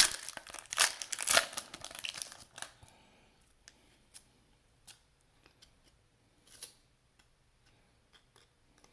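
A SkyBox basketball card pack's wrapper being torn open and crinkled. It then goes quiet, with small clicks and rustles as the cards are handled.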